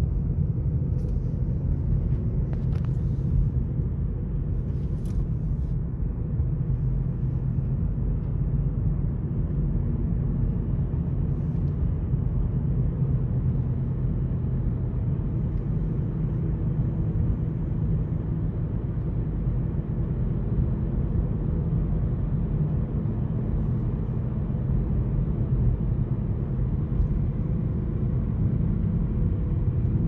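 Steady low rumble of a car's tyres and engine heard inside the cabin while driving at about 64 km/h. A few faint clicks come in the first few seconds.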